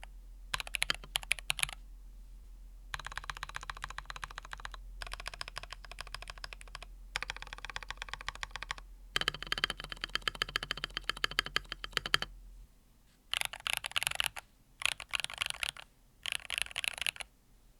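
Typing on a NuPhy Field75 mechanical keyboard with NuPhy Fleeting Gold switches: runs of rapid keystroke clicks with short pauses between them. Near the end the runs are shorter and stand out against a quieter background.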